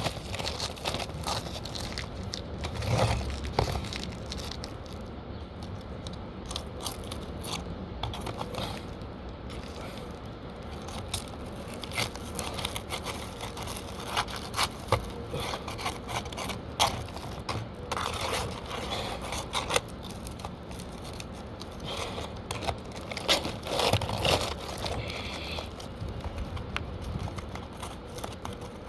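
Roof shingles being pried up and worked loose: irregular scraping and crackling with scattered sharp knocks.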